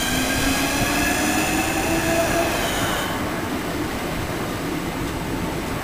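Southeastern Class 465 Networker electric multiple unit pulling away. Its traction motor whine rises in pitch over the first two or three seconds as it accelerates, then fades, over a steady rumble of the coaches rolling past on the rails.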